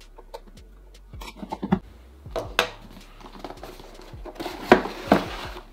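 A cardboard graphics-card box being opened by hand: scattered taps, scrapes and rustles of the flaps and packaging, with a few sharper knocks about halfway through and again near the end.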